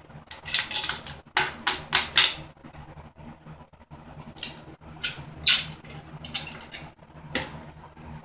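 A socket ratchet clicking in short quick runs as the exhaust bolts on a Honda XR50 pit bike are worked loose, followed by a few scattered metal knocks and clinks as the exhaust pipe is handled.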